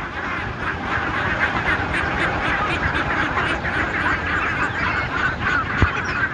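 A large flock of domestic ducks quacking all together, a dense, continuous chatter of overlapping calls. A single sharp knock sounds near the end.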